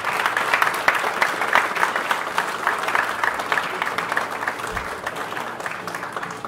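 Live audience applauding: dense clapping that thins out toward the end, with the jazz band faintly audible underneath.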